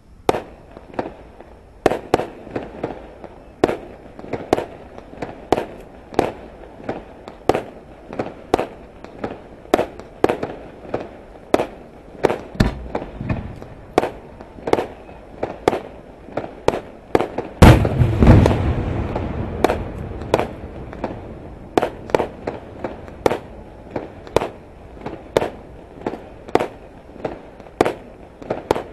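Fireworks shells bursting in a steady string of sharp bangs, about two a second. About two-thirds of the way through, one much louder, deeper boom with a long fading tail.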